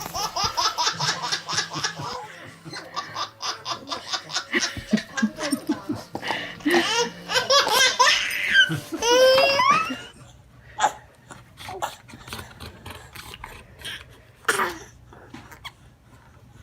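A baby laughing hard in quick repeated bursts with high squeals for about ten seconds, then only a few scattered short sounds.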